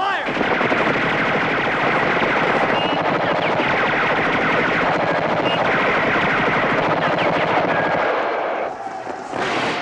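Sustained automatic gunfire from many rifles firing at once, a dense unbroken volley that eases off about eight and a half seconds in.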